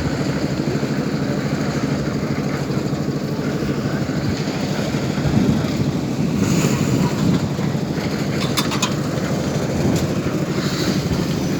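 Diesel engine of a concrete mixer running steadily during slab casting, with a few short clicks and knocks about eight and a half seconds in.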